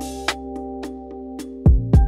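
Background music: held keyboard-like chords over a beat, with ticking percussion and heavy bass drum hits coming back near the end.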